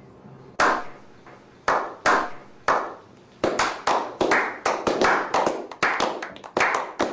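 A small group of men clapping. It starts as single slow claps spaced about a second apart, then more hands join about three and a half seconds in and it quickens into brisk applause.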